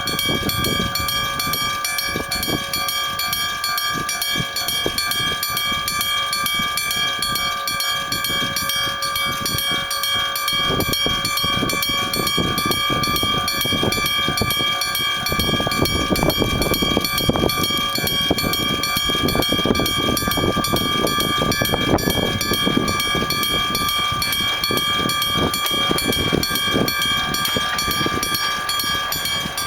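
Electric-bell (dengshō-type) level-crossing warning signal ringing continuously: a fast, even run of bell strikes with the bell's ringing tones held between them. An uneven low rumble runs underneath, stronger in the second half.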